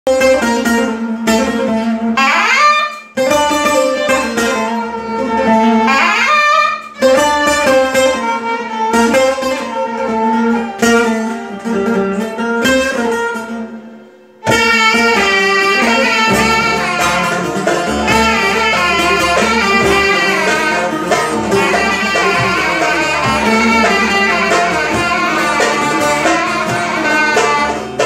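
Live instrumental Turkish folk music on violin, bağlama, darbuka and a wind instrument, with no singing. The first half is a slow, free-flowing melody over a held low note, with sliding phrases and short pauses. About halfway through, the full ensemble comes in with the darbuka beating a steady rhythm.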